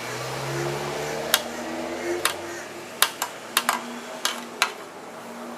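Wrench clicking and tapping against a rear-fender bolt and nut as the nut is turned off, in sharp, irregular metallic clicks.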